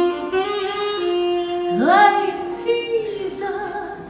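A woman singing a show tune with a band, with saxophone in the accompaniment and long held notes. A sharp upward swoop in pitch comes about two seconds in.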